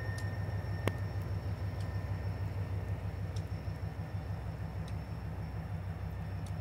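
Susquehanna (NYSW) diesel locomotive running at a distance, a steady low pulsing rumble with a faint high whine over it. A single sharp click about a second in.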